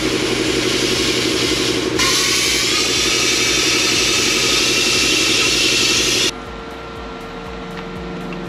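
Plasma cutter cutting through a sheet-steel electrical box: a loud, steady hiss of the air-plasma arc over a machine hum, growing stronger about two seconds in. It cuts off suddenly about six seconds in, leaving a quieter steady hum.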